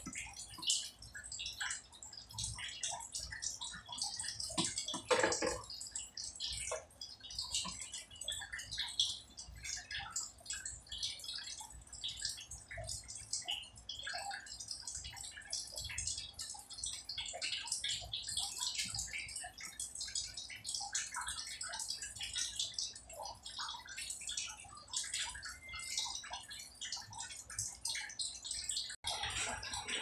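Close, irregular scratching, rustling and small clicks of fingers twisting stripped wire ends and fitting them to the terminals of a water-pump pressure switch, with a couple of louder knocks about five seconds in.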